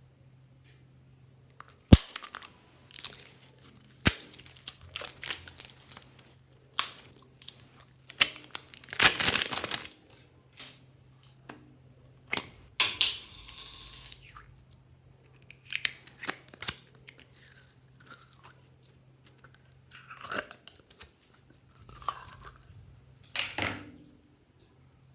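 Slime being squeezed and mixed by hand, making irregular wet squishing and crackling sounds in bursts, with a sharp click about two seconds in.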